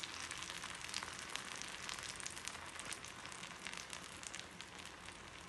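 Paruppu poli, a sweet chana-dal-stuffed flatbread, sizzling in ghee on a hot dosa griddle: a soft, steady hiss with many small crackles, easing slightly toward the end.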